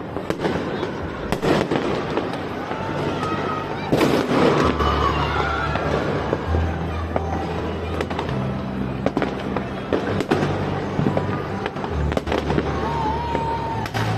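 Fireworks and firecrackers going off across the city: many sharp bangs and cracks, irregularly spaced, some distant and some close. From about three seconds in, bass-heavy music plays underneath.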